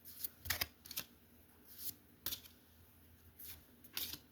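Pokémon trading cards being slid and flipped in the hand, a series of short soft swishes and flicks at irregular intervals, about seven in all.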